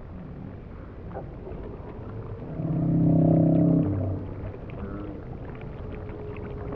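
One deep, steady ship's-horn blast of about a second and a half, a little under halfway through, from a radio-controlled model warship's sound system, over a low steady background hum.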